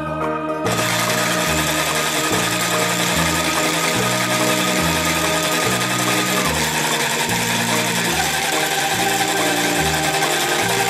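A steady whirring hiss starts about a second in and continues over background music with a stepping bass line.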